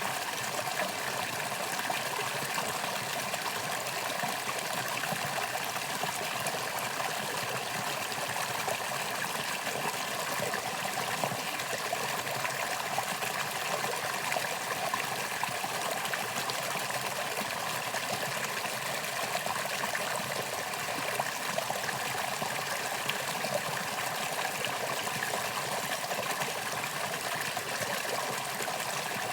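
Mountain stream water flowing and trickling over rocks, a steady, even rush.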